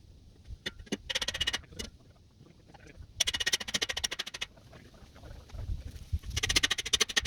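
Power tool hammering in three short bursts of rapid, evenly spaced strikes, driving a carport anchor stake into the ground.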